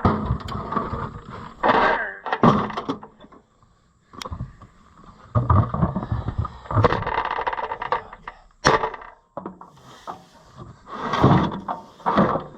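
Irregular clanks, knocks and scrapes of hand tools and metal parts being handled on an International LB gas engine as it is taken apart, with a short lull partway through.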